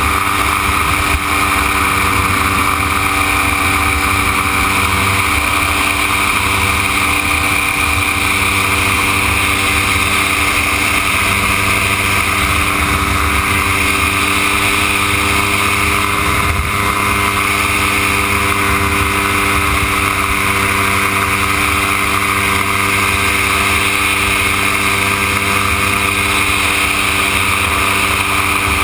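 Dominator gyroplane's engine and pusher propeller running steadily at an even pitch in flight, heard from a camera mounted on the aircraft.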